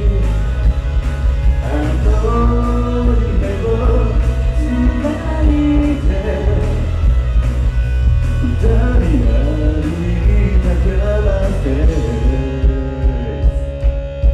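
Male solo singer singing an upbeat pop-rock song live through the PA, over loud accompaniment with a heavy bass.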